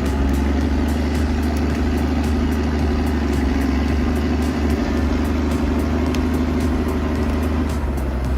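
Logging truck's engine running steadily, a low, even drone.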